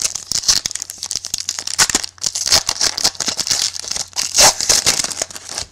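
Plastic wrapper of a trading card pack being crinkled and torn open by hand, a dense crackling rustle with many sharp clicks.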